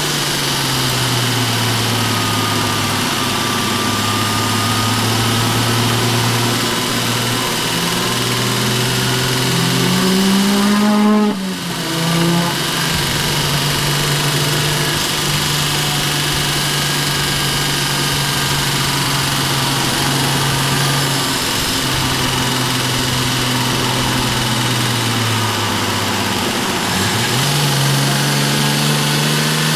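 Toyota JZX's 1JZ straight-six engine running hard under drifting, heard from inside the cabin, its pitch rising and falling with the throttle. About eleven seconds in it revs up, cuts briefly and picks up again, then holds steady before dropping and rising once more near the end.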